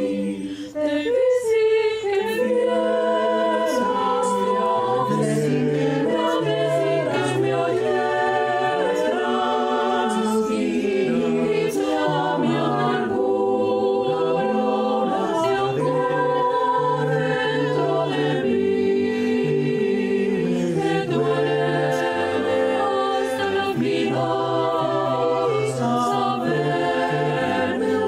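An a cappella choir of men's voices singing sustained chords in several-part harmony, with no instruments.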